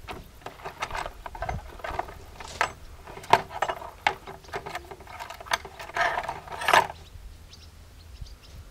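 Irregular metallic clicks, rattles and short scrapes of hand work on a chainsaw with its sprocket cover off, stopping about seven seconds in.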